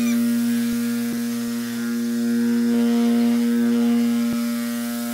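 Electric orbital sheet sander running on a wooden plank: a steady hum with a few faint clicks.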